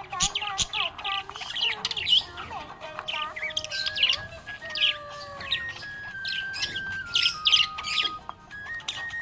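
Budgerigars chirping busily, a stream of quick, short chirps and warbles, over a simple melody of held notes stepping up and down in pitch.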